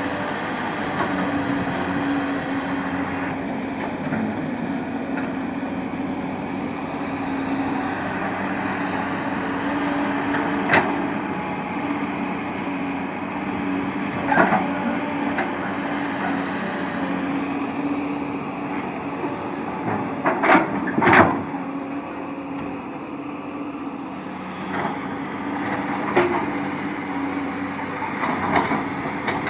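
Diesel engine of heavy earthmoving machinery running steadily with a constant hum. A few sharp knocks break through, two of them close together about two-thirds of the way in.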